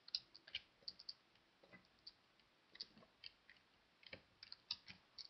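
Faint computer mouse and keyboard clicks: about fifteen short clicks at irregular intervals.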